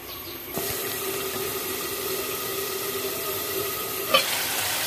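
Beef curry cooking under a metal lid, a steady hiss of steam and sizzling. About four seconds in, the lid clinks against the pot as it is lifted.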